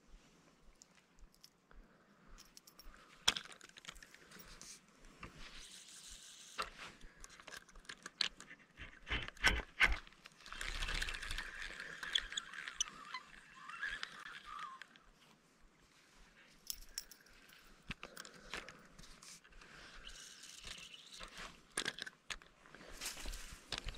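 Quiet handling noises of spin fishing: scattered clicks and knocks from the rod and reel, with short spells of rustling hiss, a few louder knocks about ten seconds in.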